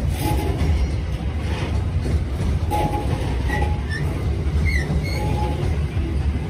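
Train running past with a continuous heavy low rumble. A few brief high squeaks come through in the middle.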